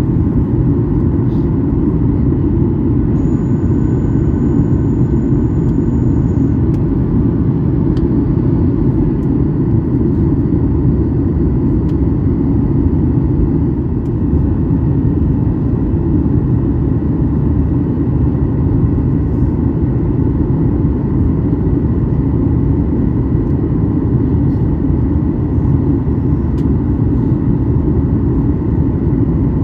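Steady in-flight cabin noise of a Boeing 737-8200 on its descent, heard from a seat over the wing: a deep, even rumble of airflow and its CFM LEAP-1B engines.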